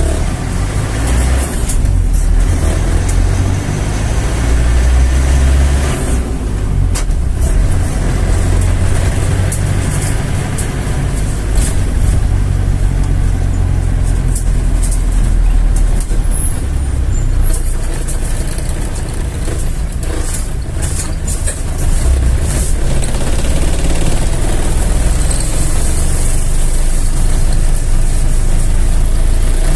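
Vehicle driving along a road, heard from the moving vehicle: a steady, heavy low rumble of engine and road noise.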